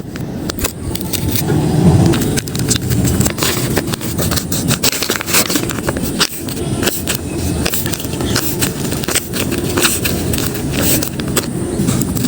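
Paper blind bags being handled and opened by hand: irregular crackling, rustling and scraping of paper and tape, over a steady low rumble.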